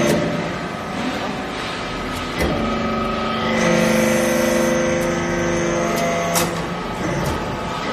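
Hydraulic metal-sawdust briquetting press at work, its pump running with a steady tone as the ram drives down to compact metal chips into a briquette. The tone grows louder from about three and a half seconds in, then drops back with a click a little after six seconds.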